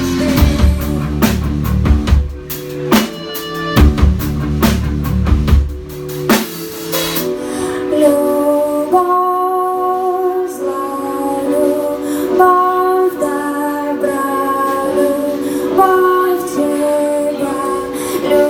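Live band music: drum kit, guitar and bass with a woman singing. About seven seconds in, the drums and bass drop away, leaving long held notes.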